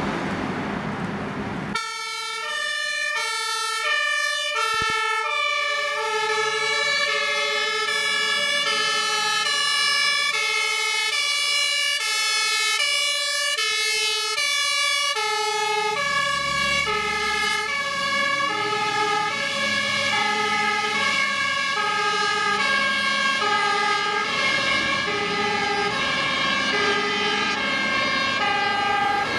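Several German two-tone fire-engine sirens (Martinshorn) sounding at once, each alternating between two pitches and out of step with the others, as fire-service vehicles drive by on an emergency run. They come in about two seconds in, after a steady rushing traffic noise.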